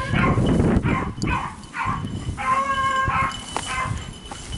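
Pack of beagles baying on a rabbit's trail, a run of repeated calls with one longer held bay about halfway through.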